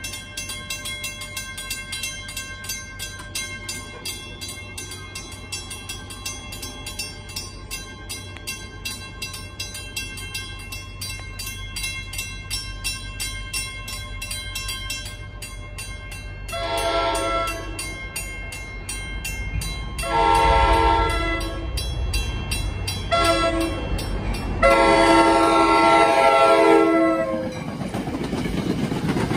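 Grade crossing warning bell ringing steadily for about the first half. Then the approaching NJ Transit Atlantic City Line train's horn sounds the grade-crossing signal, long, long, short, long, the last blast the loudest. The train's low rumble builds and it passes close by, wheels clacking at the end.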